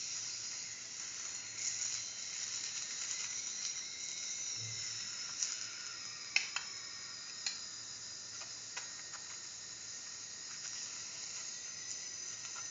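Flatbread frying in clarified butter in a hot pan: a steady sizzle with a few sharp pops about halfway through.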